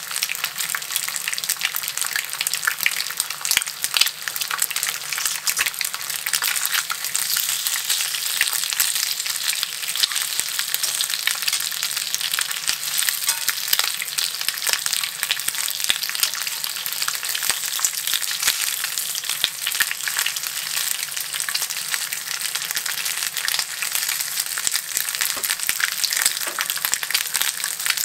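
Bacon strips frying in a Lodge cast-iron skillet: a steady sizzle thick with small crackles and spits.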